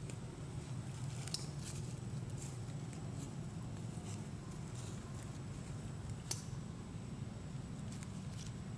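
Light scattered clicks and rustles, about nine spread irregularly, as small monkeys scramble over stone and dry leaves, over a steady low rumble.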